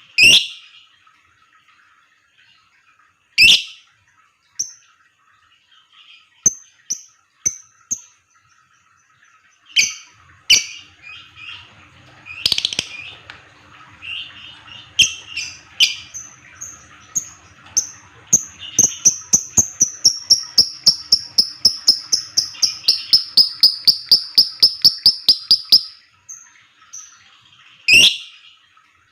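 Lovebirds calling: short high chirps with a few loud sharp calls. Past the middle comes a long, fast, even run of about five calls a second, lasting several seconds.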